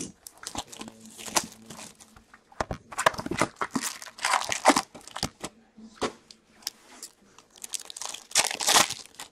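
The cardboard box of 2018-19 Upper Deck Ice hockey cards being opened and a foil card-pack wrapper torn open: a scatter of sharp clicks and crinkling, tearing rustles, with the busiest bursts about three to five seconds in and again near the end.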